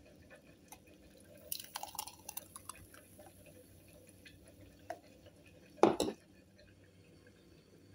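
Thick blended cucumber and jicama juice being poured from a blender jug into a glass: a patter of splashes and glass clinks as the pour starts, a quieter stretch of pouring, then a knock about six seconds in, the loudest sound.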